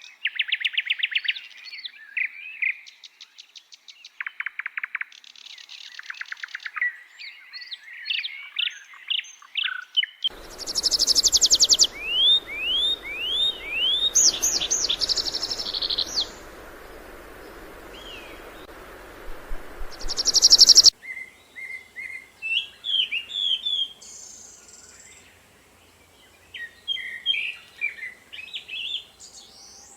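Several songbirds singing: fast trills, chirps and upward-sweeping whistles. The song comes in stretches that start and stop abruptly. From about ten to twenty-one seconds in, the birds sound over a steady hiss.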